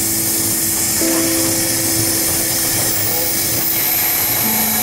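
Background music of long held notes that change pitch every few seconds, over a loud, steady hiss.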